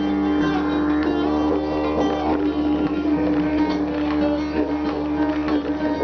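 Acoustic guitar being played, plucked and strummed notes over a steady, held low note.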